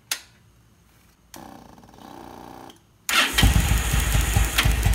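Yamaha V-Star 1100 V-twin turned over on its electric starter for a spark test, with the rear plug lead on a spark tester. A short click comes first, then a quieter hum, and about three seconds in the loud, rhythmic cranking begins. The nice blue spark seen at the tester's gap shows the ignition is firing.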